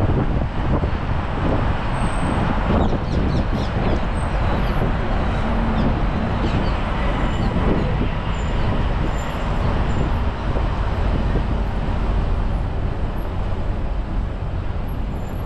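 A tour bus riding through city traffic, its engine and road noise making a steady low rumble.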